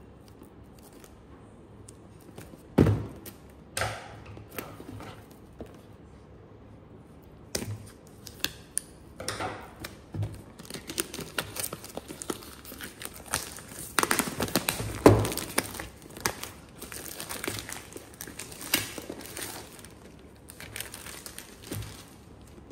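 Clear plastic shrink-wrap being torn and peeled off a cardboard box, crinkling and crackling. A few sharp isolated crackles come first, then dense crinkling from about a third of the way in, loudest around the middle.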